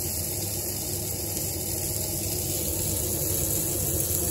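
Steady hissing noise of a charcoal grill loaded with sucuk sausage slices and köfte meatballs cooking.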